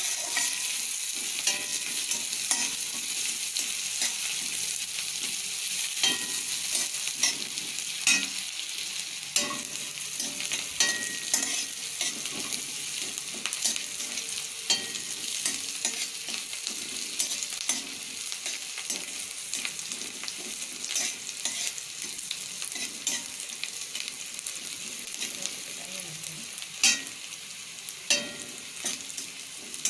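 Chopped onion frying in hot oil in an aluminium kadai, sizzling steadily, while a spatula stirs and scrapes it with frequent clicks and taps against the pan. The sizzle grows slightly quieter toward the end.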